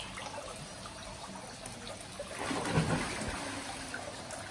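Steady trickling water, growing louder for about a second in the middle.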